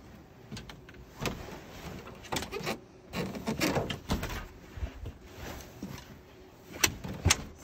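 Fabric-covered foam mattress being folded and shifted by hand: irregular rustling and soft thumps, with two sharp knocks near the end.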